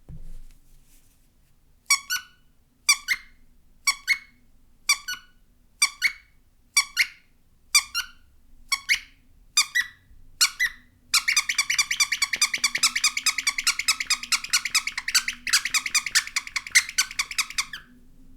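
Squeaky toy squeezed about once a second, each squeeze giving a squeak followed by a shorter squeak as it is let go. Then, from about eleven seconds in, it is squeezed rapidly for several seconds, giving a fast run of squeaks.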